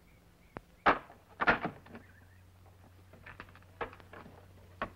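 A few sharp knocks on a wooden door in the first second and a half, then quieter clicks and rattles as the door is unlatched and opened.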